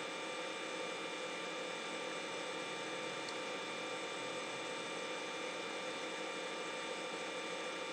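Steady hiss and electrical hum with several fixed tones held unchanged throughout, the noise of the recording itself rather than of the shop. One faint tick about three seconds in.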